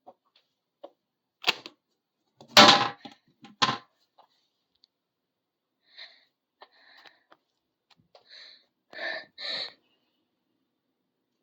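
A person coughing and retching in a series of harsh bursts. The loudest comes about two and a half seconds in, and weaker ones follow near the end.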